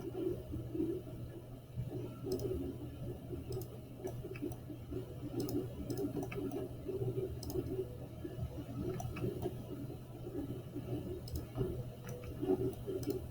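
Computer mouse clicks, irregular and a second or so apart, over a steady low hum and some soft handling noise.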